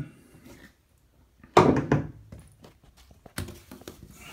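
A few knocks in a bathtub: a heavy thunk about one and a half seconds in, followed quickly by a second, then light clicks and a sharp knock near the end, as a screwdriver is handled at the metal tub drain.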